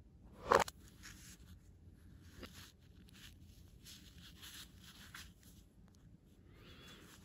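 Cotton-gloved hands rubbing and rustling against a smartwatch and its cardboard packaging tray, with one short, louder knock about half a second in.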